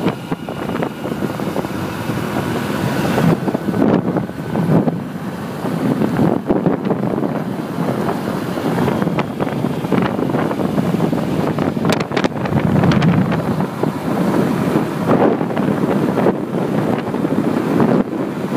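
Wind buffeting the microphone of a road vehicle at speed, over the vehicle's running and road noise, rising and falling in gusts. A couple of sharp clicks come about two-thirds of the way through.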